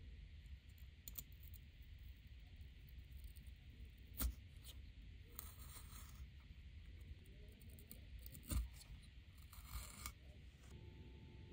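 Faint workbench handling of balsa wood against a steel setup block: light scraping rubs and a few soft taps, the clearest about four and eight and a half seconds in.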